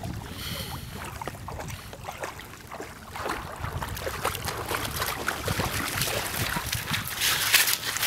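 Wind buffeting the microphone over light splashing and sloshing of water, growing louder toward the end.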